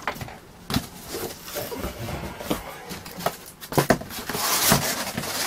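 Cardboard shipping box being opened by hand: a string of sharp knocks and scrapes as the taped flaps are worked loose. About four seconds in the cardboard flaps and bubble wrap rustle steadily.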